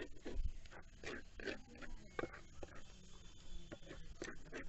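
Metal spatula scraping and stirring a thick chutney paste on a small iron tawa, in short irregular strokes.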